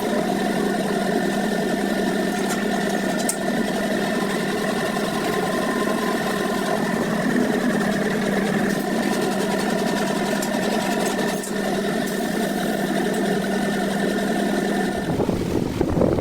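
A machine running at a steady speed, a constant mechanical hum, which stops about fifteen seconds in and gives way to a rougher, noisier rumble.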